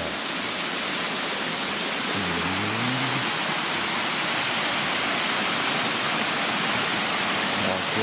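Waterfall cascading down a rock face into a pool: a steady, even rushing of water. A man's short murmur is heard about two seconds in.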